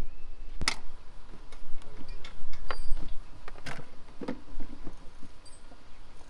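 Scattered clicks and light knocks from hands handling tools and plastic engine-bay parts, with two sharper clicks about three seconds apart.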